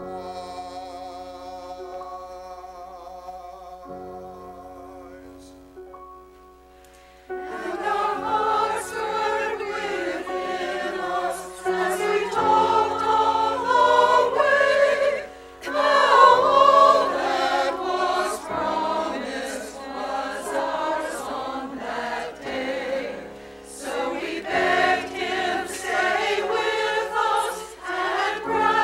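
Mixed church choir singing. A quiet instrumental introduction of held notes fades out first, and the choir comes in about seven seconds in, singing with brief pauses between phrases.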